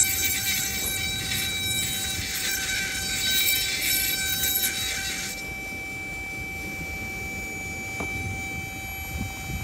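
Electric handheld rotary tool drilling into a carnelian agate bead, a high gritty grinding hiss of the bit cutting the stone. The grinding stops abruptly about five seconds in, leaving only a steady faint whine.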